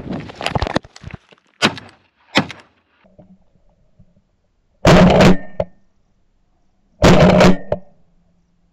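Two shotgun shots about two seconds apart, each a loud, sudden blast, fired at long range at chukar. A few brief, softer noises come before them.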